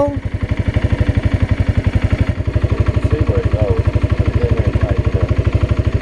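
Kawasaki Brute Force 300 ATV's single-cylinder four-stroke engine idling, an even rapid chuffing pulse of about a dozen beats a second, with a slight change in its low rumble a couple of seconds in.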